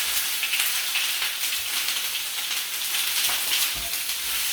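Garlic paste sizzling and spattering in hot olive oil in a pan: a steady hiss with many fine crackles, the spattering set off by water in the paste.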